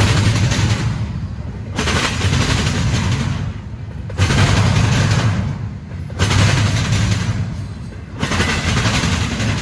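Double-stack intermodal freight train rolling past close by, its steel wheels rumbling and clattering on the rail. The noise swells about every two seconds as each car's wheel sets go by.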